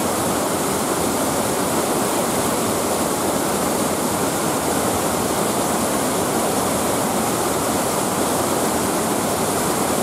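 Steady rush of Otome Falls, a man-made waterfall fed by the Ōkawara irrigation channel, with water pouring down a rock face and splashing into the rocks below.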